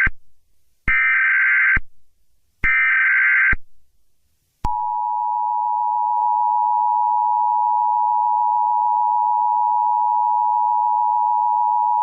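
Emergency Alert System header: the end of the first and then the second and third of three short, harsh digital data bursts (the SAME code). About a second later the steady two-tone EAS attention signal starts and holds unbroken; it marks the start of an emergency alert, here a tornado watch.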